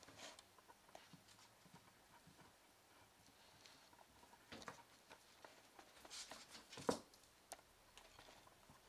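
Faint light taps and patter of a kitten's paws on a laminate floor as it plays with a potato skin, in a few small clusters, the sharpest tap about seven seconds in.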